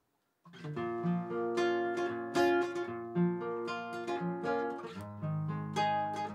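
Acoustic guitar picked: a melody of single notes over lower bass notes, starting about half a second in.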